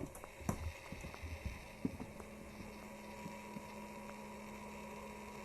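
Faint room tone: a few soft knocks, then a steady low hum from about two seconds in.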